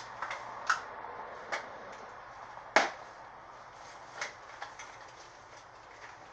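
Scattered clicks and knocks of small objects being handled while someone rummages through a bag, with one much louder knock about three seconds in.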